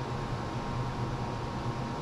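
A steady low machine hum with an even hiss and a faint high tone, unchanging throughout: background noise of a running fan-like appliance.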